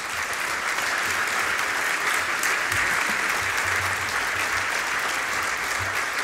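A large seated audience applauding steadily after a talk.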